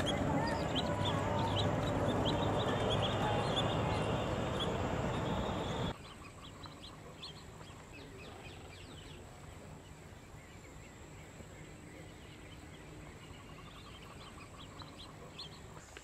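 Many birds calling at once, a dense chatter of short calls. About six seconds in it cuts off abruptly to a much quieter background with faint, scattered bird chirps.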